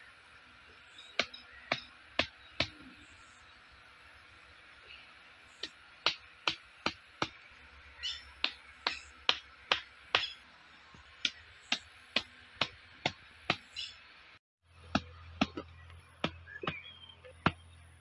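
Hammer striking the tops of thin wooden stakes, driving them into the soil: sharp knocks in runs of several, about two a second, with short pauses between runs.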